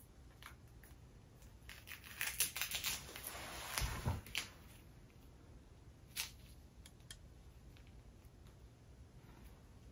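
Rustling and a run of light clicks from hands handling the cat and its wrap, loudest a little before the middle, then one more click about six seconds in.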